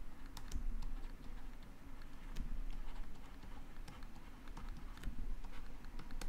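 Stylus tapping and scratching on a tablet screen while writing by hand: a scattered run of light clicks.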